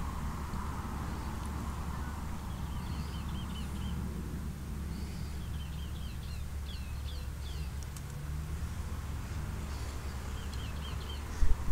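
Small bird chirping in several short runs of quick, falling notes over a steady low hum. Near the end a sudden, loud low rumble.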